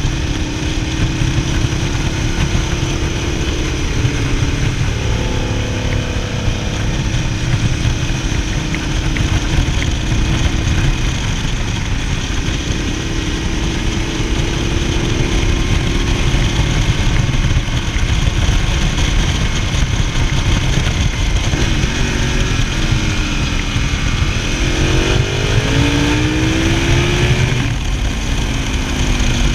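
Motorcycle engine running under way with heavy wind and road rumble. The engine pitch rises and falls through the ride, with several quick rising sweeps near the end as the bike accelerates through the gears.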